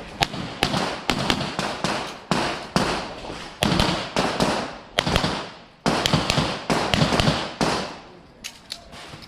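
A rapid string of handgun shots, about two to three a second, with a brief break partway through; the firing stops shortly before the end, leaving a few faint ticks.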